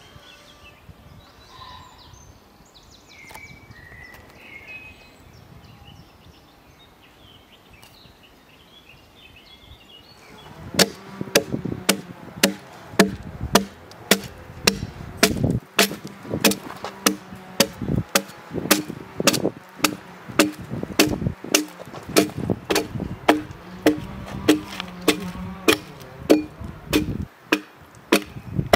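A few faint bird chirps over quiet outdoor ambience, then about ten seconds in an asymmetrical hewing broad axe starts chopping along the side of a log. The sharp chops come at about two a second and keep on.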